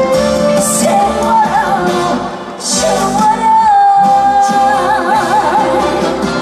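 Female trot singer singing live over band accompaniment; about halfway through she holds one long note with vibrato.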